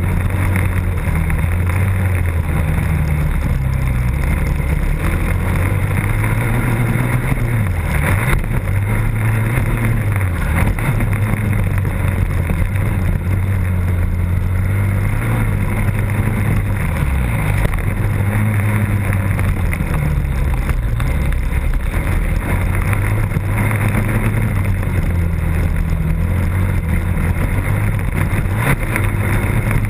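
Motocross dirt bike engine heard up close from a camera on the bike, running hard with the revs rising and falling again and again as the rider accelerates, shifts and backs off through the track's turns.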